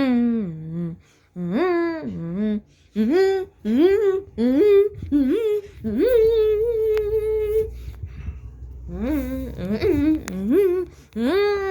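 A voice making high, warbling hummed notes in short bursts, each sliding up in pitch, with one note held steady for over a second about six seconds in.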